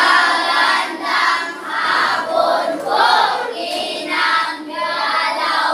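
A class of children singing together in unison, in short phrases about a second apart.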